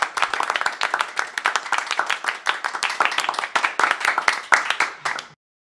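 Clapping and applause from a small group, a dense run of irregular hand claps that cuts off suddenly near the end.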